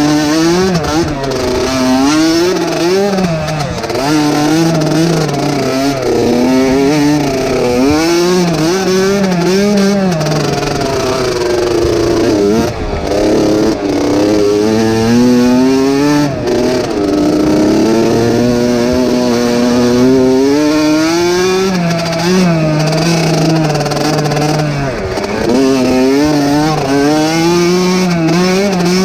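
Dirt bike engine ridden hard, its revs rising and falling every second or two with the throttle and gear changes.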